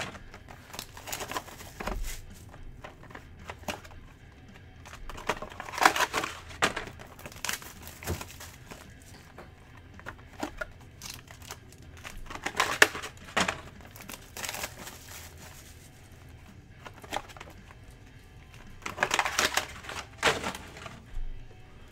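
Crinkling and rustling of packaging as trading card boxes are handled, in four bursts separated by quieter stretches.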